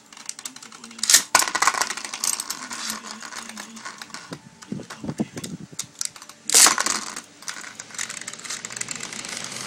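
Beyblade spinning tops whirring and clattering in a plastic basin, with a running stream of small metallic clicks and clinks as they strike each other and the rim. There is a loud burst about a second in, as a second top is launched into the basin, and another loud clash about six and a half seconds in.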